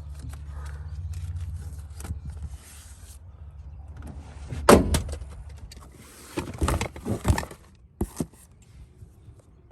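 Knocks, clunks and rustling as the loose door glass is pushed up by hand and taped in place, with a loud knock about five seconds in and a cluster of knocks and rustling a little later. A steady low hum runs under the first two seconds or so.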